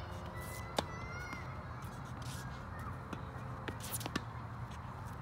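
Tennis rackets hitting a ball in a volley rally: one sharp pop about a second in and several fainter hits later. Squeaky calls that rise and fall in pitch sound around the first hit.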